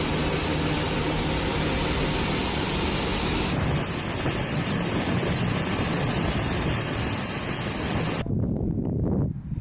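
Aircraft engines running loud and steady, with a high thin whine over the noise. The sound changes abruptly about three and a half seconds in and again near the end.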